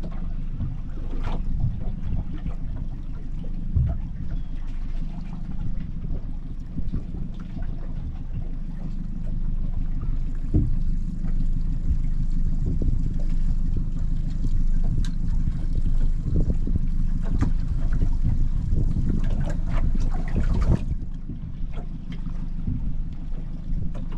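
Wind rumbling on the microphone and water lapping around a small boat's hull, steady throughout, with a few sharp knocks.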